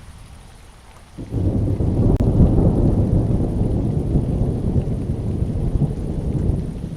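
Thunder over steady rain: a low rumble breaks in suddenly about a second in, rolls on, and eases slightly near the end.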